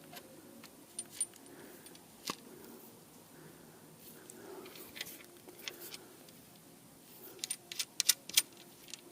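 Light metallic clicks and clinks of fishing tackle being handled while 'krokodil' bank rods are put together: a few scattered clicks, then a quick run of sharper clicks near the end.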